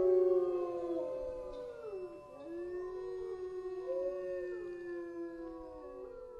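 A chorus of wolf howls: several voices overlapping in long held notes that slide down in pitch, loudest at the start and fading toward the end.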